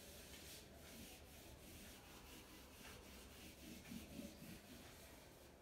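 Faint rubbing of a duster wiped in repeated strokes across a whiteboard, erasing marker writing.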